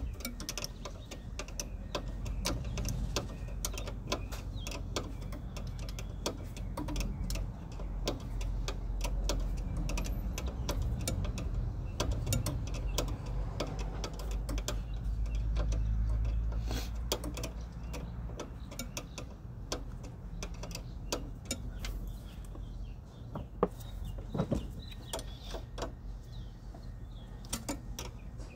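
Ratchet wrench clicking in short, irregular runs as it works the line fittings loose on an ABS brake master cylinder unit, over a steady low rumble.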